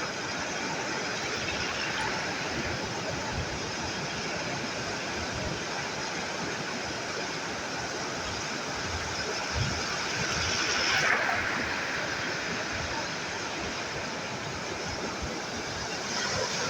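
Sea waves washing ashore in a steady rushing wash, with one wave breaking louder about two-thirds of the way through and another swell near the end.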